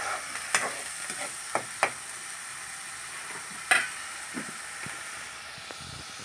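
Onion and ginger-garlic masala sizzling as it fries in oil in a kadai, a steady hiss that slowly fades. A few sharp clicks and scrapes of the spatula against the pan come through it, the loudest about three and a half seconds in.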